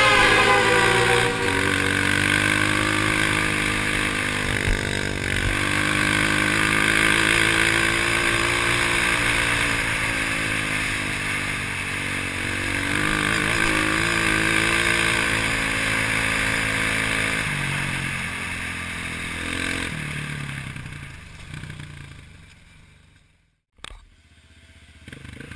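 Trail motorcycle engine running and revving up and down as it rides. The engine sound fades away about three-quarters of the way through, and a short silence is broken by a single click near the end.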